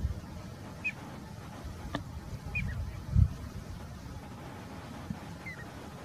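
Piping plover giving short, high whistled peeps, three calls spaced a second or two apart, two of them doubled. Wind rumbles on the microphone underneath, with a gust thump a little past the middle.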